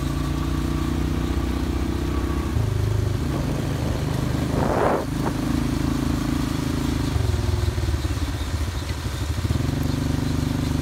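Tractor engine running steadily, its pitch stepping up and down a few times, with a short rushing burst about five seconds in.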